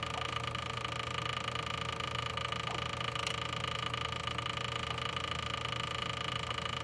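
A steady electrical hum with a high, unchanging whine; a faint click about three seconds in.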